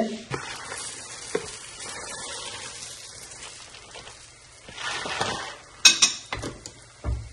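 Uncooked rice pouring from a plastic bag into a stainless steel pan of hot oil and onion, grains rattling and the pan sizzling softly. A sharp click just before six seconds in and a couple of low knocks near the end.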